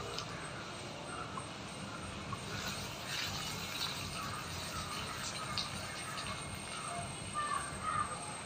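Water poured from a hand-held vessel, splashing onto the ground, starting a couple of seconds in, with birds chirping in the background.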